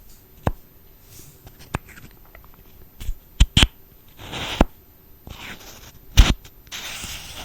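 A small makeup stick and its packaging being handled close to the microphone: a series of sharp clicks and taps, the loudest a little after six seconds in, with two brief soft rustling scrapes.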